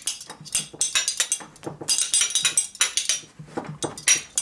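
A pair of metal spoons played as a percussion instrument, rattled between hand and knee. It gives quick runs of clacks with short pauses between them.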